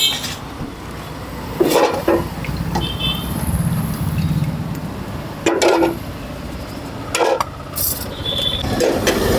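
Street traffic: a steady rumble of passing vehicles, with two short high horn toots, one about three seconds in and one near the end. A few sharp clatters of steel utensils are heard at the food cart.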